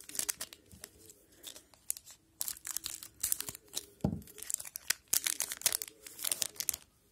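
Plastic wrapper of a Parkhurst hockey card pack being torn open and crinkled in the hands, in several short spells of crackling, with a soft thump about four seconds in.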